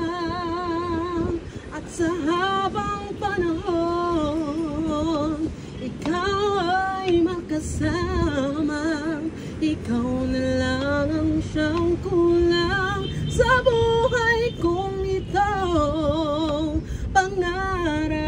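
A slow love ballad sung in a high voice with wide vibrato, one drawn-out phrase after another.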